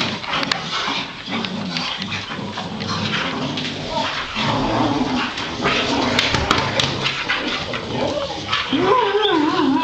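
Boxer dogs in rough play with a man, a busy mix of scuffling and smacking pats, and near the end one dog lets out a wavering whine that rises and falls in pitch.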